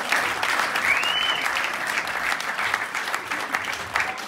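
Audience applauding, a dense steady clapping, with a brief high rising tone about a second in.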